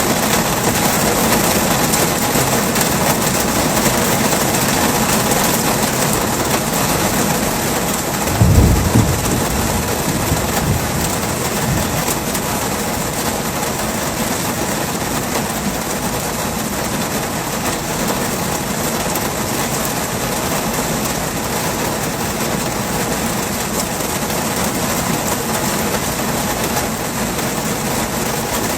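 Heavy rain falling steadily, with a low clap and rumble of thunder about eight and a half seconds in.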